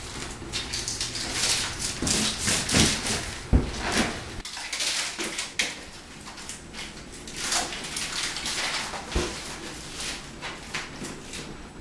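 Hands working an electric floor-heating mat onto a plywood subfloor: the mat's mesh and tape strips rustle, crinkle and scrape in quick irregular strokes as it is peeled and pressed down.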